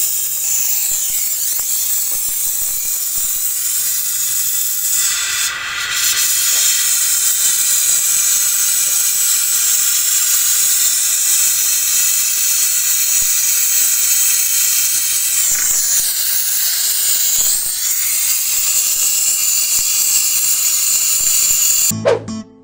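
Compressed nitrogen hissing as it is blown through a side-by-side refrigerator's clogged refrigerant tubing to flush out the blockage. The loud, steady hiss wavers a little a couple of times and cuts off suddenly near the end.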